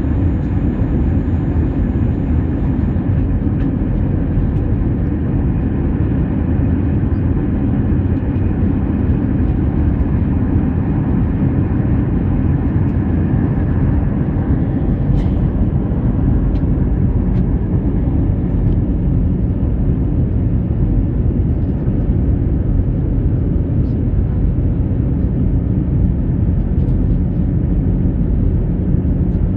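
Steady low drone inside the cabin of an Airbus A321-112 in flight: the CFM56 engines and the rush of air over the fuselage, heard from a window seat beside the wing.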